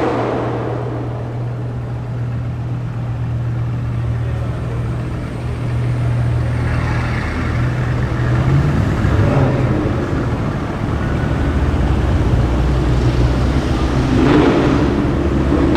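Car engine running at a low, steady idle. Its pitch lifts briefly about eight seconds in, and it swells louder near the end.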